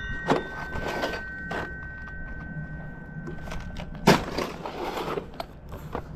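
Scattered knocks and rattles of freshly cut vinyl siding pieces being handled, the loudest about four seconds in, over a faint steady high whine that stops at that knock.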